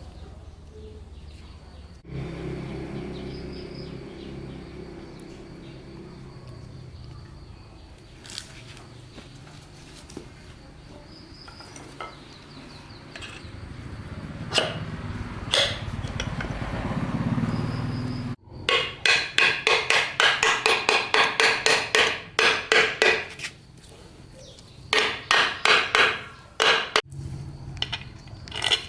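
Hammer striking metal in quick runs of blows, about four a second, in the second half. Before that, a steady low machine hum builds and then cuts off suddenly.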